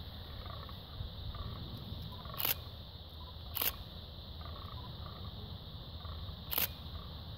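Fallow bucks groaning in the rut, with three sharp clicks over them: two about a second apart, then a third three seconds later.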